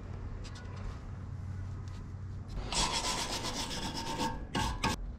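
A scraping rub lasting about a second and a half, followed by two short scrapes, as parts of the front suspension are worked by hand, over a low steady hum.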